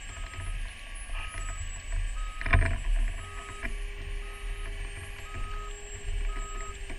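An electronic vehicle warning beeper sounding about once a second, each beep short and steady, over the low steady rumble of a fire engine running. A loud knock comes about two and a half seconds in.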